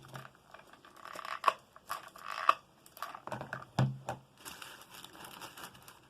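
Paper being crumpled and handled, an irregular run of crinkles and crackles with a few sharper snaps.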